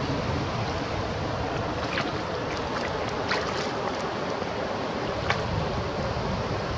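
Steady wash of water along the shoreline, with a few light clicks scattered through the middle.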